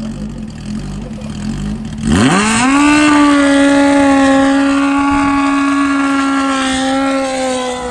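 Suzuki Hayabusa drag bike with a stretched swingarm idling, then about two seconds in the engine revs up sharply and is held at a high, steady pitch for a burnout, the rear tyre spinning and smoking. The note sags slightly and eases off near the end.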